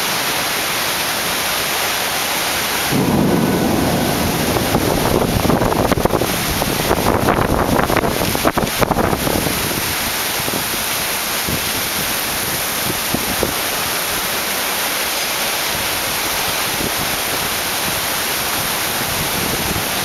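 Heavy rain falling steadily, with a peal of thunder that breaks in about three seconds in and rumbles and crackles for some six seconds before the rain alone is left.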